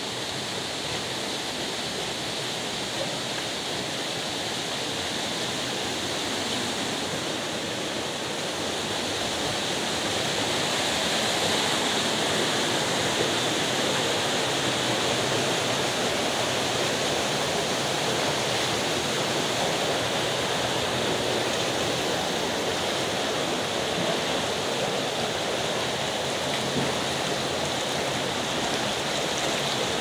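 Steady rush of water falling down a mossy rock face and running over the rocks of the shallow stream below, growing a little louder about ten seconds in.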